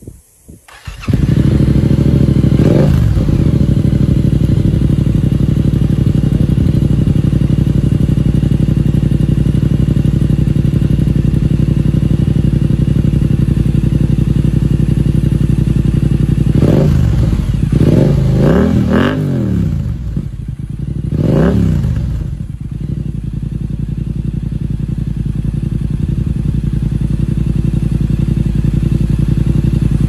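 Yamaha R7's parallel-twin engine, breathing through an Akrapovic exhaust, starts about a second in and settles into a steady idle. There is one short throttle blip right after start-up, then a run of four quick blips a little past the middle, each rising and falling back to idle.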